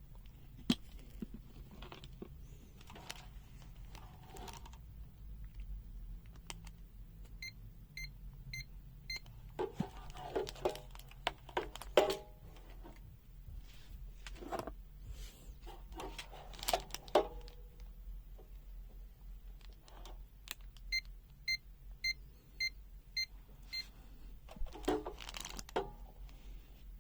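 Multimeter's non-contact voltage (NCV) detector beeping as it senses a live wire: two runs of short high beeps, about two a second, four near the end of the first third and about seven later on. Clicks and rattles of the meter and leads being handled come between the runs.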